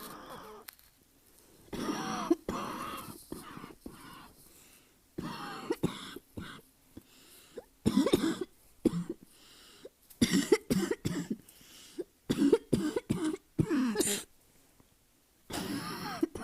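A person's barking cough, coming in about six bouts of several quick coughs each, with short pauses between; the uploader puts the cough down to asthma.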